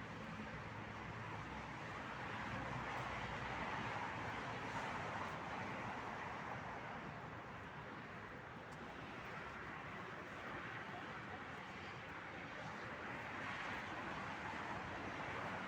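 Outdoor ambient noise: a steady rushing that swells and eases slowly every several seconds.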